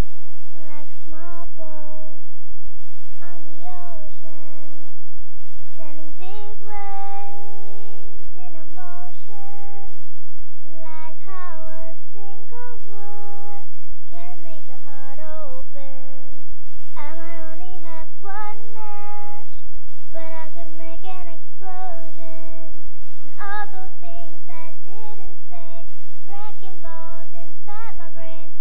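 A young girl singing a melody solo into a handheld microphone, without accompaniment, with long held notes and pitch glides.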